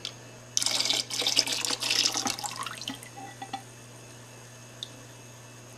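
Dissolved sugar syrup poured slowly from a glass measuring cup into a bucket of blueberry wine: a splashing trickle for about two seconds that then dies away.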